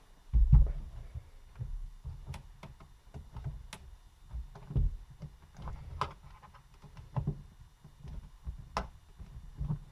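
Irregular plastic clicks, taps and low thuds of an HP Pavilion dv7 laptop keyboard being pried up with a screwdriver against tight latches, with a heavier thump about half a second in and sharp clicks every second or two.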